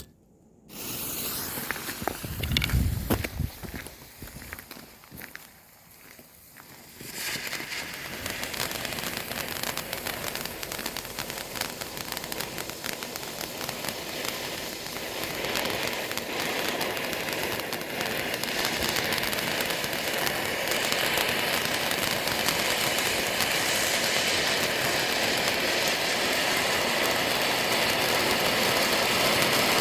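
A First Class cone fountain firework burning, with a steady hissing spray of sparks and dense crackling that starts about seven seconds in and grows louder. A few seconds of low bumps come before it.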